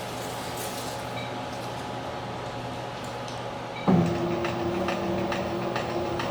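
Stepper motor on a CNC-converted PM-727M milling machine driving the table along its axis with a steady hum. About four seconds in it suddenly gets louder, with a new higher steady tone and light ticking.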